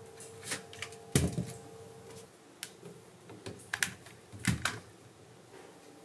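Hard plastic hair dryer being handled and set down on a wicker basket: a series of sharp clicks and knocks, the loudest about a second in, with a faint steady hum over the first two seconds.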